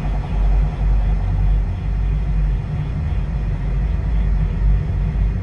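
A loud, deep, steady rumble with no clear pitch.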